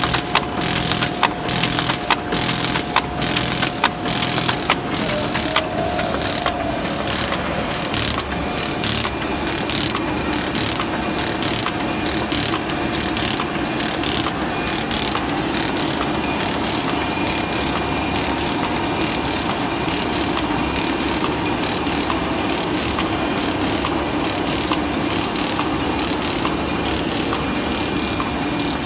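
B&R Moll one-piece mailer folder-gluer running, a steady mechanical rattle of belts and rollers with a regular clacking, about two to three a second. The clacks are sharpest in the first few seconds.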